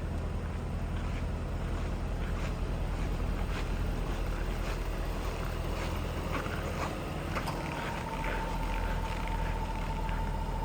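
Ford FPV Super Pursuit V8 engine idling with a steady low rumble. A thin steady high tone joins it about two-thirds of the way through.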